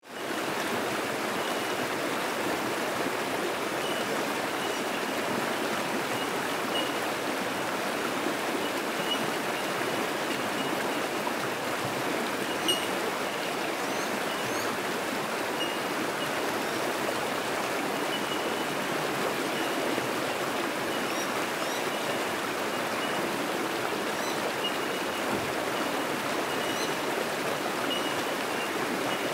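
Fast creek rapids rushing steadily over rocks, fading in at the start. Faint, short, high single notes of bell miners (bellbirds) ring out again and again in the background.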